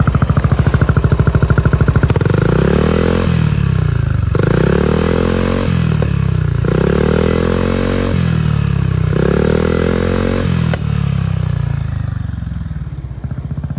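2004 Yamaha Grand Majesty 250's liquid-cooled four-stroke single-cylinder engine running through an aftermarket stainless slip-on muffler: an even idle, then four throttle blips, each rising and falling in pitch, and back to idle.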